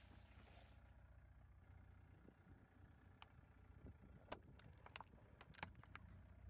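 A car tyre crushes small juice cartons, with a brief hiss of squirting juice at the start, then flattens plastic ketchup bottles, making a series of sharp cracks and clicks in the second half. Under it all runs the low, steady hum of the car's engine.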